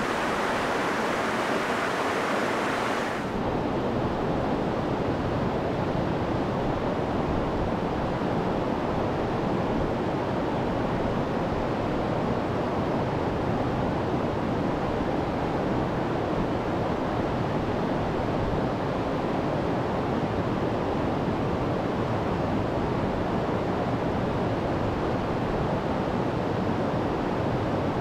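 Steady rushing outdoor noise with no distinct events. About three seconds in it turns abruptly from a bright hiss to a duller, deeper rush.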